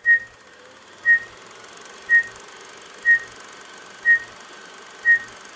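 Film-leader countdown beeps: six short high beeps, one each second, over a steady hiss.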